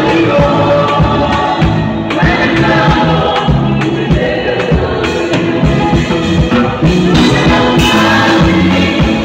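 Live gospel band with drum kit, keyboard and guitar playing a song with voices singing, over a steady drum beat.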